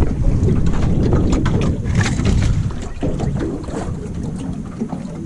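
Wind buffeting the microphone over water noise around a small drifting boat, with scattered light clicks and knocks.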